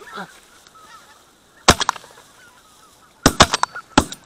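Shotgun shots fired at geese flying high overhead: one shot a little under two seconds in, a quick cluster of shots around three and a half seconds, and another near the end. Wild geese honk faintly at the start and between the shots.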